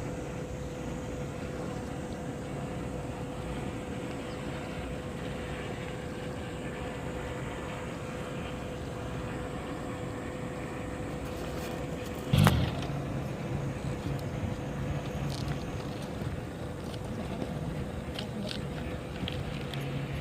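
Engine running steadily with a low hum and a held tone, broken by a single loud knock about twelve seconds in and a few faint clicks after it.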